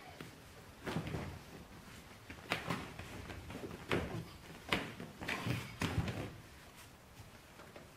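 Thumps, knocks and rubbing from the leather rear seat backrest being pushed and pressed into place by hand, several sharp knocks between about one and six seconds in, then quieter.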